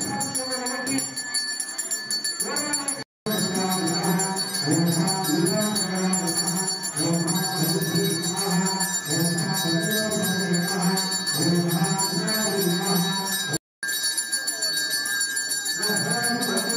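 Temple bells ringing steadily during puja at the shrine, with devotional music over them. The sound cuts out briefly twice, about three seconds in and again near the end.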